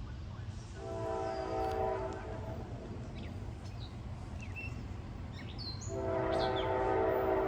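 CSX GE freight locomotive air horn sounding two long blasts, each a steady chord of several notes. The first lasts about a second and a half; the second comes about four seconds later and is still sounding at the end. A steady low rumble runs underneath.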